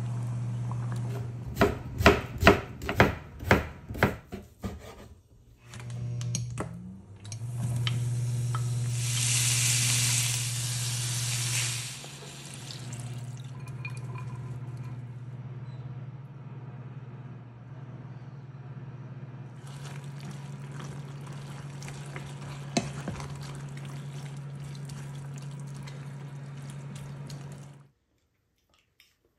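Kitchen cooking sounds over a steady low hum. A quick run of sharp splashes or knocks comes in the first few seconds, then a loud hissing sizzle for several seconds, then quieter steady simmering as chicken and vegetables cook in a pot and pan. Everything stops abruptly near the end.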